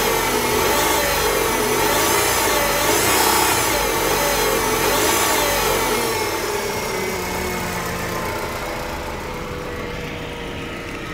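Kia Sephia power-steering system whining over the idling engine, the pitch swinging up and down about once a second, then easing to a quieter, steadier sound about halfway through. The noise persists even after the power-steering reservoir and hydraulic pump were cleaned.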